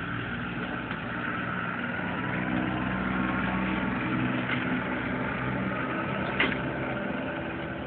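A steady mechanical hum like an idling engine, swelling slightly in the middle. About six and a half seconds in there is a single sharp clack of a drill rifle being handled.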